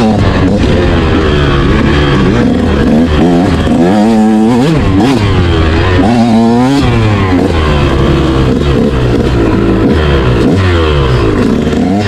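Motorcycle engine revving up and down repeatedly, its pitch climbing under throttle, then dropping at shifts and lifts off the throttle.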